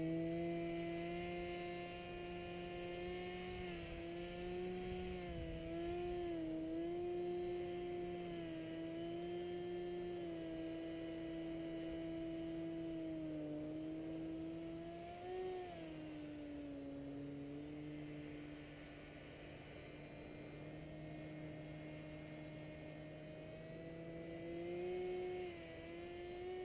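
Paramotor engine and propeller heard from below as a steady hum. The pitch wavers a little, rises briefly and then drops about halfway through, and it grows louder again near the end.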